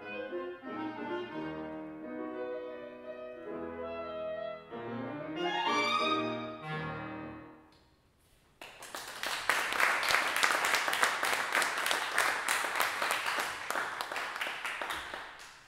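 Clarinet and piano play the closing bars of a classical piece, ending with a rising run and a final note about seven seconds in. After a moment's pause, audience applause follows.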